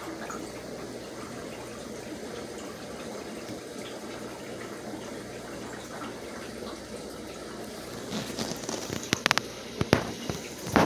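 Steady rush of aquarium water and aeration in a room full of running fish tanks. In the last few seconds, several sharp clicks and knocks.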